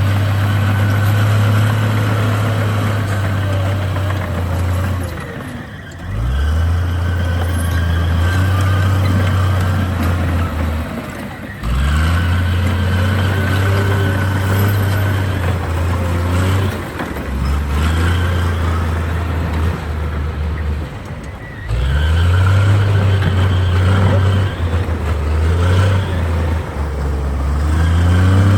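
Komatsu D58 bulldozer's diesel engine repeatedly revving up and running hard under load for several seconds, then easing off, about every five to six seconds.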